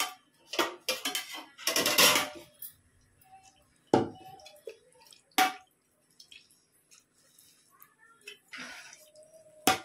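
Metal ladle stirring and knocking against a large metal pot of rice being parboiled for biryani. A cluster of clattering scrapes comes in the first couple of seconds, then single sharp clinks, one near the end.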